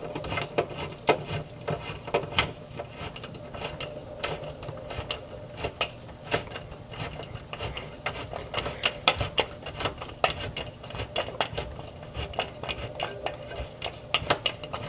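Hex-head screws being driven by hand through a sheet-metal stove anti-tip bracket into the wall: many quick, irregular metallic clicks and scrapes from the hand tool and bracket.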